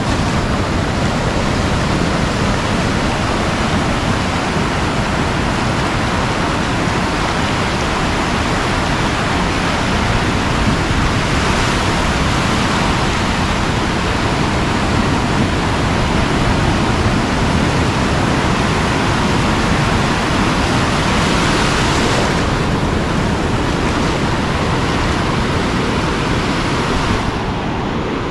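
Ocean surf breaking and washing through the shallows in a steady, loud rush. The rush grows brighter and hissier between about 11 and 22 seconds in, then thins out near the end.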